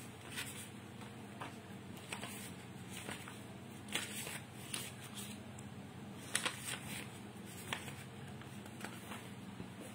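Quiet room tone: a steady low hum with scattered faint clicks and rustles, about one every second.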